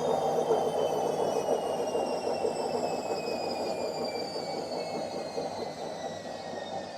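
Washing machine on its spin cycle, the drum spinning with a high screech from worn drum bearings over a rushing mechanical noise. The whine slides steadily lower in pitch and the machine grows quieter as the drum slows.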